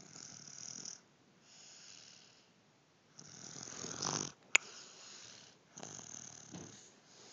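A baby snoring: a run of noisy breaths in and out, each about a second long with short gaps between. One sharp click comes a little past halfway.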